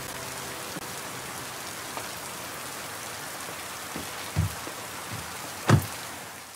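Steady rain falling, with a couple of dull thumps; the louder one, near the end, is a car door shutting. The rain fades away at the end.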